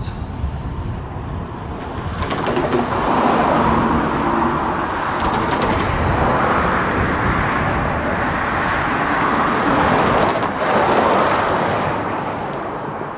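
Road traffic going by: a steady rush of tyre and engine noise that builds a couple of seconds in, swells again near the end and then eases off.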